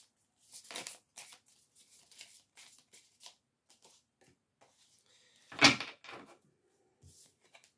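Oracle cards being shuffled and handled: a string of short, light slaps and swishes, with one louder thump about five and a half seconds in.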